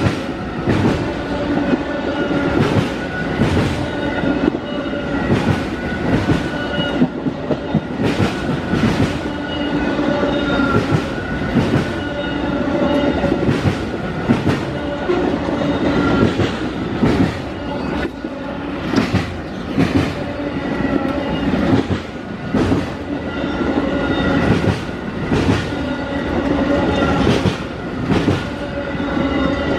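Amtrak Auto Train autorack cars rolling past close by: steel wheels clacking over the rail joints in quick, uneven strokes, with steady tones running under the clatter.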